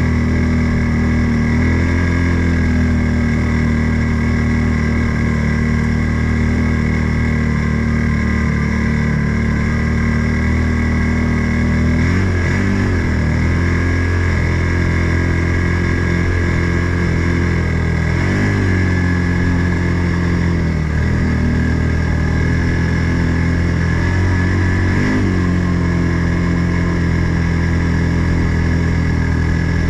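Engine of an Odes 800 off-road vehicle running under way. Its speed dips and climbs back about three times, as the throttle is eased and opened again.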